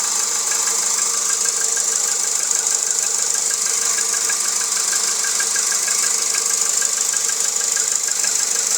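Volkswagen Jetta 1.6-litre engine running at a steady speed, with a rapid, regular knock ticking along in time with it: the engine knock the owner is recording.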